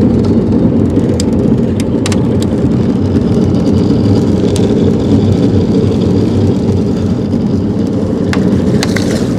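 Jet boat's engine running steadily, a dense even rumble, with a few light clicks and knocks about two seconds in and again near the end.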